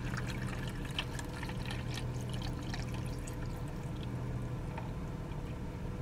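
Water pouring steadily from a plastic bottle into the plastic jug of a 12-volt car kettle-cooker, over a steady low hum.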